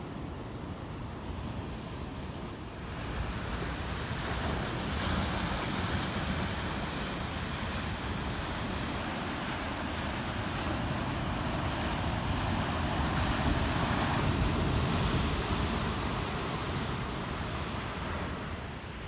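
Ocean surf washing in at the shore, swelling about three seconds in and loudest a little past the middle before easing off, with wind on the microphone.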